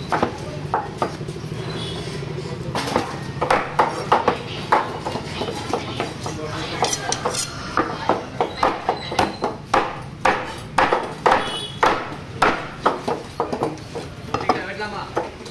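Large curved fish-cutting knife chopping a fish into steaks on a wooden block. A steady run of sharp chops starts about two and a half seconds in and keeps up at about two a second.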